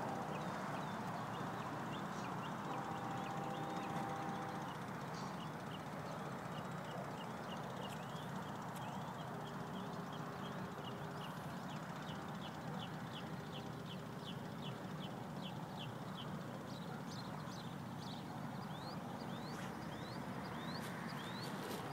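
Faint, steady hum of a distant electric RC warbird's motor, an FMS Corsair on a 4S LiPo, over steady outdoor background noise. A quick run of short high chirps comes through in the middle.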